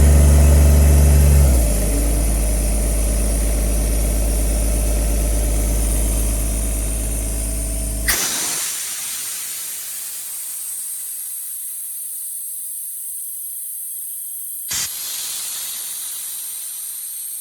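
CompAir C 15-14 mobile compressor's Yanmar 3TNV76 three-cylinder diesel running, dropping to a lower, quieter speed about a second and a half in, then stopping suddenly with a click about eight seconds in. After it stops, a steady hiss of air continues, with one short click near the end.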